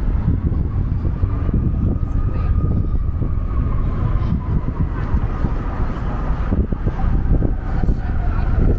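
City street ambience: a steady low rumble of road traffic, with a faint steady whine above it.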